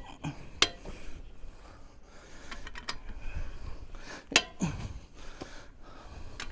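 Scattered metallic clinks and light scraping as lug nuts and a wrench are handled on a truck wheel's studs, with a few sharp clicks spaced irregularly.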